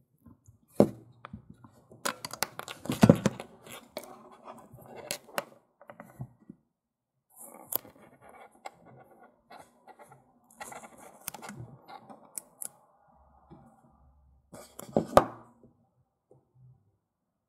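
Hands peeling and crinkling a black plastic wrap off a cylindrical lithium-ion battery cell, with rustling and scattered sharp clicks from handling. The loudest clicks come about three seconds in and near the end.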